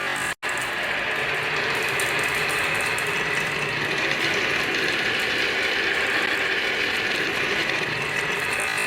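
Marbles rolling and clattering along a marble run track, a steady rattling rumble. It breaks off for an instant just after the start, then runs on evenly.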